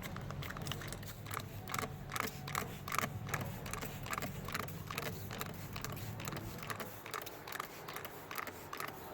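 Trigger spray bottle being squeezed over and over, a short click-and-spray about two to three times a second.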